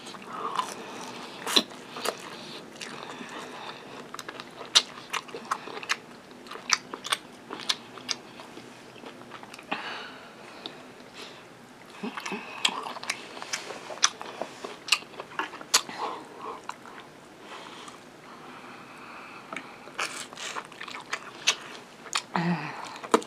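Fried chicken wings being bitten and chewed: sharp crispy crunches scattered throughout, with softer chewing between them.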